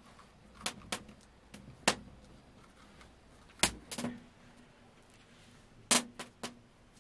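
A series of sharp knocks and clatters at irregular intervals, about eight in all: a pair about a second in, single knocks around two and three and a half seconds, and a quick run of three near the end.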